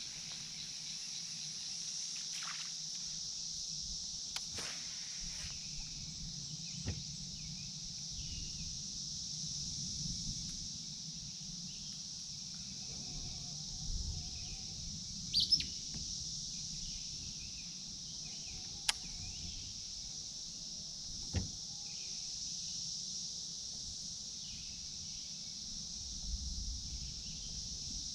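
Steady high insect drone over a low hum, broken by a few light clicks and knocks and one brief bird chirp about halfway through.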